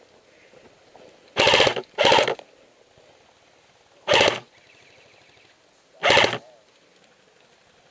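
An airsoft AK-pattern electric rifle firing four short full-auto bursts, each a rapid rattle of shots lasting about a third of a second. Two bursts come close together near the start, then one more every two seconds or so.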